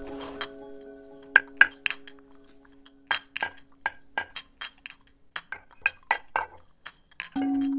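Glass clinking: a string of sharp, irregular clinks, some ringing briefly, laid over a sustained musical drone that fades away. The drone music swells back in near the end.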